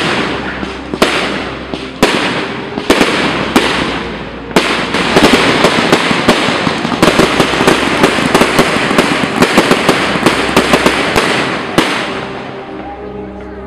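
Fireworks display: aerial shells burst with sharp bangs about once a second. About four and a half seconds in, a dense, rapid barrage of many bangs and crackles takes over, then dies away near the end.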